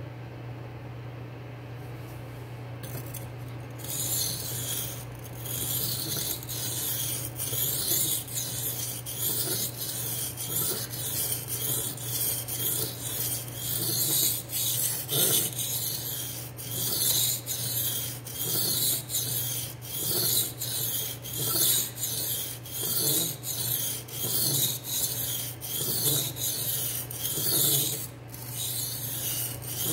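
D2 steel knife blade, held at a fixed angle in a DMT aligner guide, being stroked back and forth across a King K80 sharpening stone. It makes a rhythmic rasping of steel on stone, about one stroke a second, starting about four seconds in.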